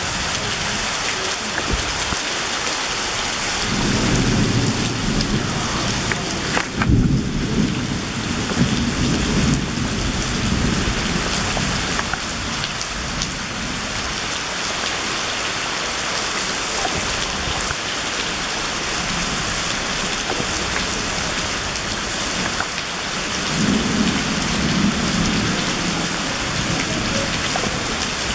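Heavy rain pouring steadily on trees and waterlogged ground. Low rolls of thunder build about four seconds in, again from about seven to eleven seconds, loudest just after seven seconds, and once more near the end.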